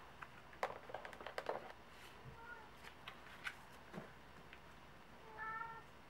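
A quick cluster of light clicks about a second in, like fingers tapping calculator keys. It is followed by faint, short cat meows, once near the middle and once near the end.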